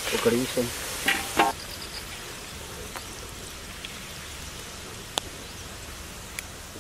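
Potato sticks deep-frying in hot oil in a large black wok, a steady sizzling hiss. A few sharp clicks come through in the first second and a half, and two more single clicks later on.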